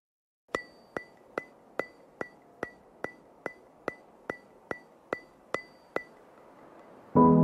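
Background music: a run of evenly spaced, ringing ticks, about two and a half a second, then piano-led music coming in near the end.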